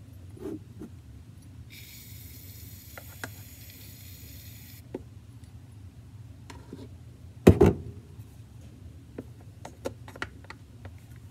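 Aerosol shaving-cream can hissing for about three seconds as foam is dispensed, cutting off suddenly. Then a single loud thump about seven seconds in, and a few light taps as foam is scraped off a plastic measuring cup with a wooden stick.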